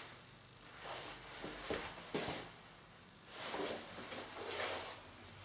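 Faint rustling and handling noise from a handheld camera being moved about, with several soft swells of rustle and a couple of light clicks or knocks near the middle.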